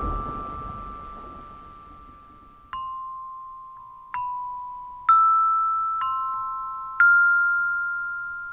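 Soundtrack of single bell-like chime notes, glockenspiel-style, struck one at a time five times about a second apart, each ringing on and fading slowly. Over the first two seconds a low rumble and earlier ringing notes fade away.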